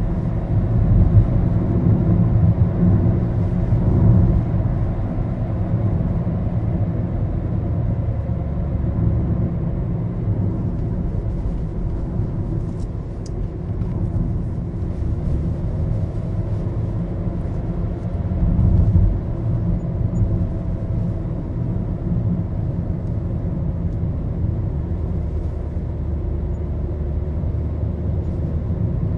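Low road and engine rumble heard inside the cabin of a moving Maruti Suzuki Baleno, steady apart from brief swells a few seconds in and again about two-thirds of the way through.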